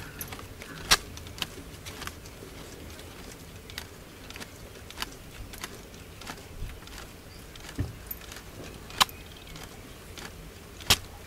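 Quiet, irregular clicks, rustles and a few sharper snaps from a dry palm-leaf hand fan being waved and a meal being eaten by hand off a banana leaf; the loudest snaps come about a second in, about nine seconds in and near the end.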